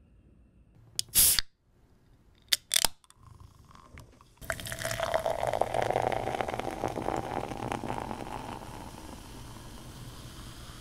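A can of non-alcoholic beer cracked open with a sharp pop and hiss about a second in, followed by two short clicks. From about four seconds in the beer is poured into a glass mug, splashing and fizzing as the foam rises, the pour slowly getting quieter.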